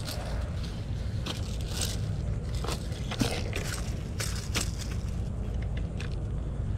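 Irregular crunching and rustling in grass and dry leaves, a scattered string of short crisp clicks, from a landed peacock bass on the lawn and the angler moving over it. Under it runs a steady low rumble.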